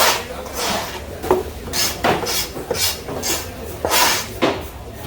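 Knife strokes scraping and chopping through fish on a wooden cutting block, about two strokes a second, over a steady low hum.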